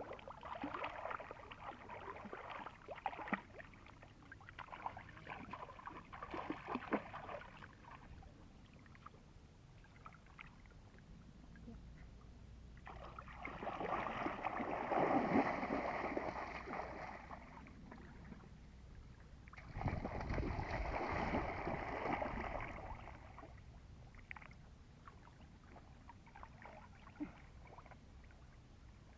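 Water splashing and sloshing: crackly spatters at first, then two longer swells of rushing water a few seconds apart.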